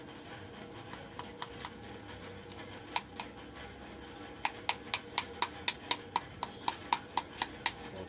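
A series of sharp knocks: a few scattered ones, then a quick regular run of about four a second in the second half.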